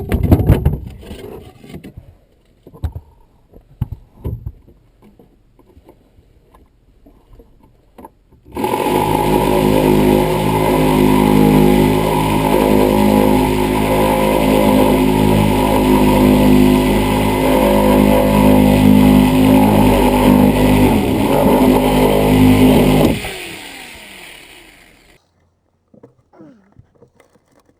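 Ridgid reciprocating saw (Sawzall) motor running steadily for about fifteen seconds, then winding down as it is switched off. Scattered knocks and clicks come before it starts.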